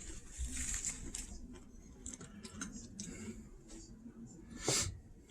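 Faint crackles, clicks and rustles of a snack being eaten and handled, with a louder short rustle near the end.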